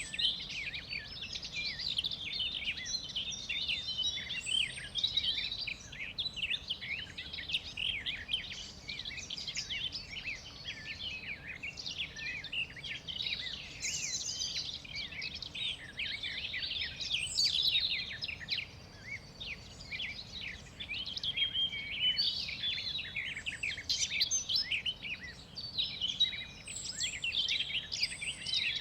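Chorus of many small songbirds chirping and trilling at once, a dense continuous mix of short, high calls overlapping throughout, with a slight lull around two-thirds of the way through.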